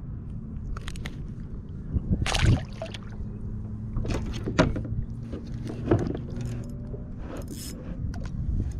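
Knocks, scrapes and light rattles of hands and fishing gear against a plastic fishing kayak, over a steady low rumble. The loudest knock comes about two and a half seconds in.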